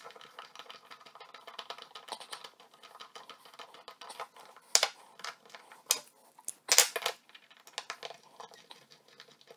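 Steel pin punch clicking and scraping against the steel trigger-guard assembly of a Martini Cadet rifle as a pin is pushed out, with many small ticks and a few sharper metallic clicks around the middle.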